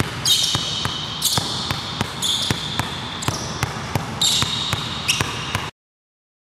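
Basketball being dribbled on a hard floor, bouncing steadily about three times a second, with a high squeal about once a second. The sound cuts off suddenly about five and a half seconds in.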